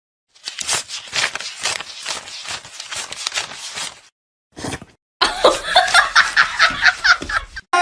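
A person laughing: first about four seconds of breathy snickering, then, after a brief break, a run of quick pitched 'ha-ha' laughs.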